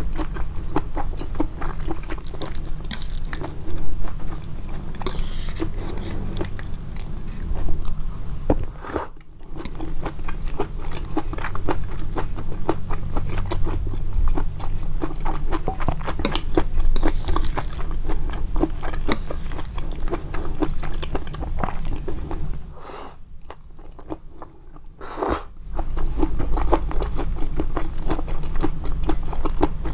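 Amplified chewing of japchae glass noodles: a dense run of small, quick mouth clicks. It breaks off briefly about nine seconds in and falls to a quieter lull of about three seconds past the two-thirds mark.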